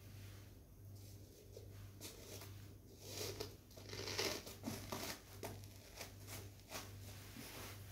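Red plastic saucer being set into a hole in sand and pressed down by hand: faint scraping, crinkling and light clicks of sand and plastic, loudest about three to five seconds in.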